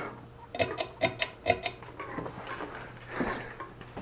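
Quick run of about seven sharp clicks, about a second in, as the speed control of an Emerson Legend ceiling fan is switched up a speed. A steady low hum lies underneath.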